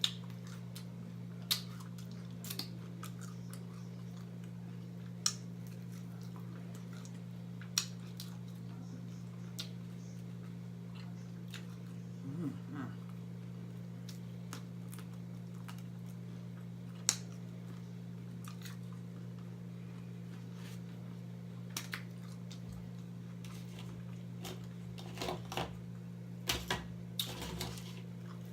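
Sporadic sharp mouth clicks and smacks of someone chewing chicken wings, growing busier near the end, over a steady low hum.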